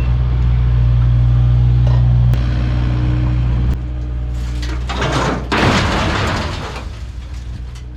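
Diesel engine of a Kubota U55-4 mini excavator running steadily, easing down in level a few seconds in, with two short bursts of noise about midway before the sound fades out near the end.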